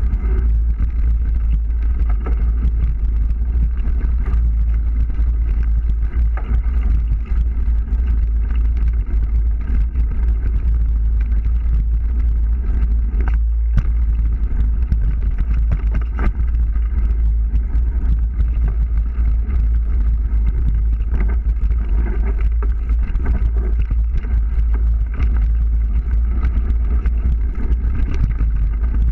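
Mountain bike ridden fast down a rough dirt trail, heard from a bike- or helmet-mounted action camera: a steady, loud low rumble of wind buffeting the camera's microphone, with frequent knocks and rattles from the bike over the ground, one sharper knock about halfway through.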